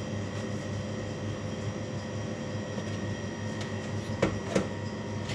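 Steady mechanical hum of kitchen machinery, with two sharp knocks a little after four seconds in as a knife cuts through a ball of pasta dough and strikes the stainless steel counter.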